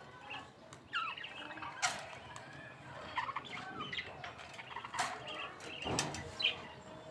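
A wire birdcage door latch being worked open, with a few sharp metal clicks and rattles. Birds chirp in short calls around it.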